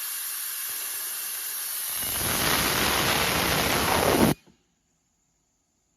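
Steady hiss of air from a pneumatic semi-automatic soldering machine, growing louder about two seconds in, then cutting off abruptly.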